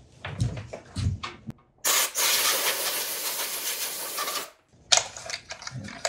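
A burst of compressed air, a loud steady hiss lasting about two and a half seconds, blowing built-up dust out of a mini tabletop bandsaw's housing. Lighter knocks of handling come before it, and a single sharp click follows.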